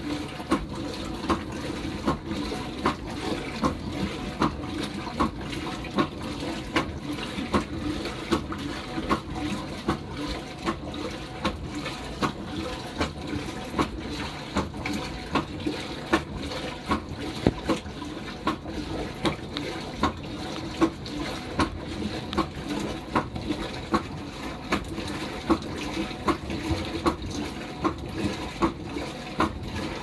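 Top-loading washing machine running a wash with a load of whites: water churning and swishing in the drum, with a sharp splash or knock a little more than once a second as the wash action turns the load.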